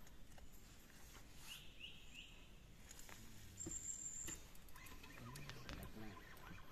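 Faint outdoor ambience with a bird giving three quick rising chirps, followed about two seconds later by a short, thin, high-pitched tone.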